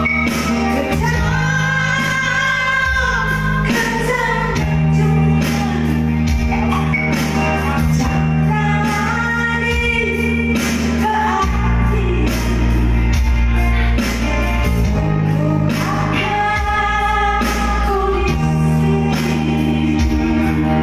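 A woman singing into a microphone over amplified backing music with a steady bass line, holding long notes with vibrato, clearest a second or two in.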